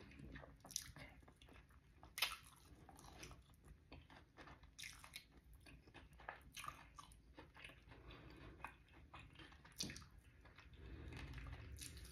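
Close-miked chewing and biting of crispy, sauced fried chicken wings: soft, irregular crunches, with two sharper ones about two seconds in and near ten seconds.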